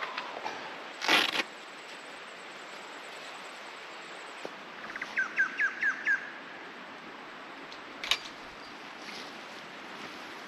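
A bird gives a quick run of about six short chirps midway, over a steady outdoor hiss. Around it, the vehicle awning being set up makes a brief loud rustle about a second in and a single sharp click about eight seconds in.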